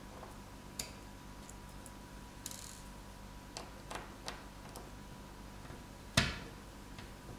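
Small, quiet clicks and ticks of a precision screwdriver and fingers working tiny Phillips screws out of a smartphone's charger port flex, with one sharper knock about six seconds in.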